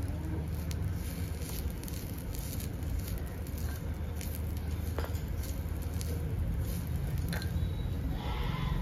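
Small metal ladle stirring greens in a miniature clay pot, a soft rustling and squishing with a few light clicks of ladle against clay, over a steady low rumble.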